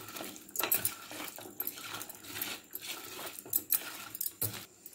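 Bitter gourd slices being hand-mixed with batter in a stainless steel bowl: irregular small clinks and rustles as the bangles on the mixing wrist knock against each other and the bowl.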